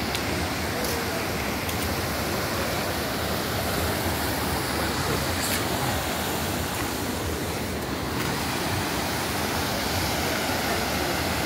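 Muddy floodwater rushing past in a fast, turbulent current: a steady, unbroken rushing noise.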